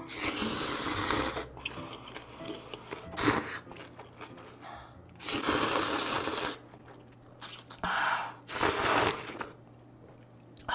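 Ramen noodles being slurped up from chopsticks in a series of loud slurps. The longest come at the start and about halfway through, with shorter ones in between and near the end.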